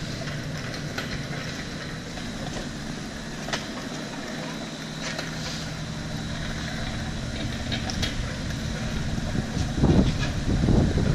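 A car engine running steadily, growing louder near the end.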